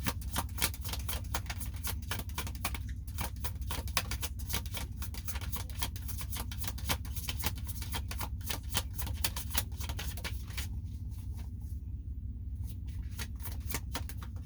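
A tarot deck shuffled by hand: a fast run of soft card flicks and slaps that stops for about two seconds near the end, then starts again, over a steady low hum.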